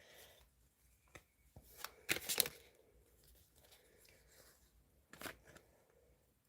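Tarot cards being handled and a card turned over: a few short, soft swishes and taps, the loudest about two seconds in and another near the end.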